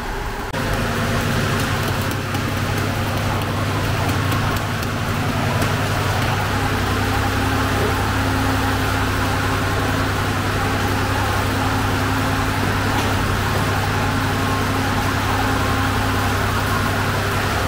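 Steady roar and low hum of a gas-fired sangak bread oven and its ventilation, running without a break from about half a second in.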